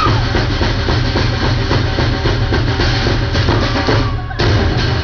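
Live Polynesian drumming: a fast, even percussion rhythm with a heavy low drum beat. It breaks off briefly about four seconds in, then resumes.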